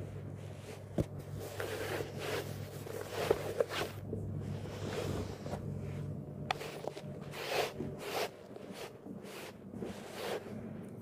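Irregular rustling and scraping, like handling or fabric and bag movement, with a couple of sharp clicks, over a steady low hum.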